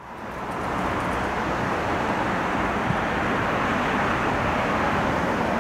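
Steady outdoor rushing noise of road traffic, fading in over the first second and then holding level.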